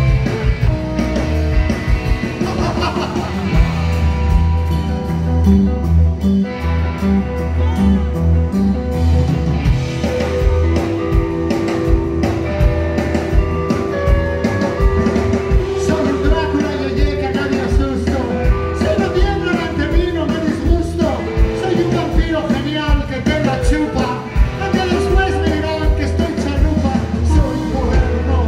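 Rock band playing live: electric guitars, bass and drums, loud and steady throughout.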